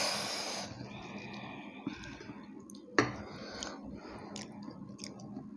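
Close-up eating sounds of puri dipped in haleem being chewed, with wet mouth clicks and smacks. A breathy rush comes at the start, and a single sharp tap sounds about three seconds in.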